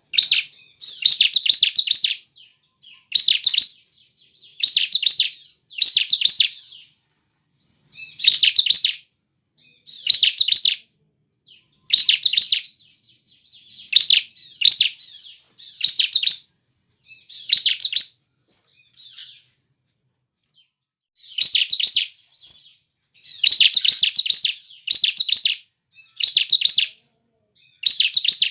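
Bar-winged prinia (ciblek) singing: repeated short bursts of rapid, high chattering notes, one every second or two, with fainter trilling between some bursts and a pause of a couple of seconds past the middle.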